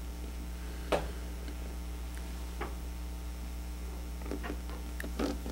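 Quiet room tone with a steady low electrical hum, broken by a handful of short, faint clicks; the sharpest comes about a second in.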